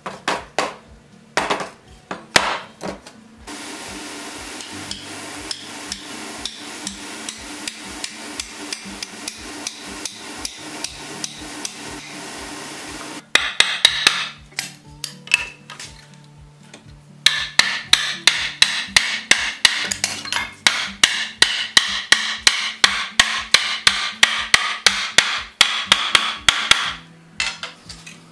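Hammer blows on a wooden wagon wheel as the felloes are driven onto the spokes, coming in runs of about three sharp strikes a second. Background music with a low bass line plays underneath.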